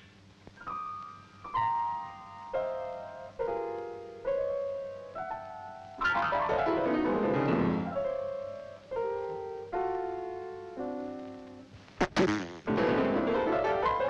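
Piano keys sounding as a crab walks across the keyboard: single notes step down the keyboard about once a second, then a quick run sweeps down. More falling notes follow, then two sharp clicks and a second fast run near the end.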